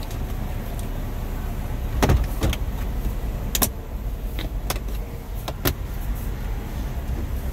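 Jeep Wrangler's plastic dash trim panel being pressed and fitted into place: a string of sharp plastic knocks and clicks, loudest about two seconds in, over a steady low rumble.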